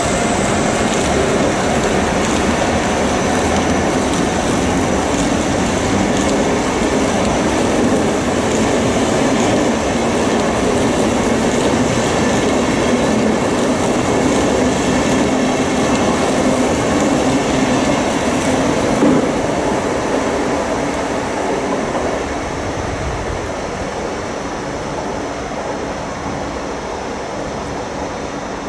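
ÖBB Railjet passenger train rolling away along the platform, a steady rumble of wheels on the rails that fades over the last several seconds as the final coaches pull away.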